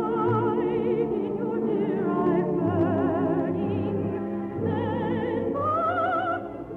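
Operetta singing with wide vibrato over orchestral accompaniment, a high voice climbing near the end. The sound is narrow and dull, like an old radio recording.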